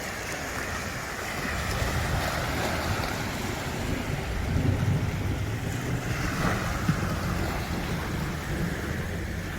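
Sea waves washing onto the shore, with wind buffeting the microphone; the low wind rumble picks up about a second in.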